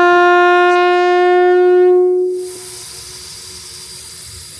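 Air-powered train horn blowing one steady tone, cutting off a little over two seconds in, followed by a hiss of escaping air.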